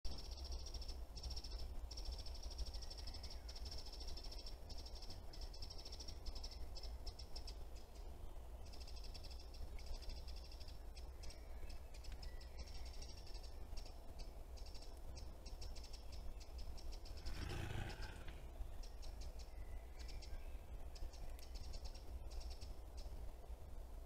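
Forest ambience through a trail camera's microphone: a steady low rumble under a high, fast-pulsing trill that comes and goes, with faint bird chirps. One short, louder call about 17 seconds in.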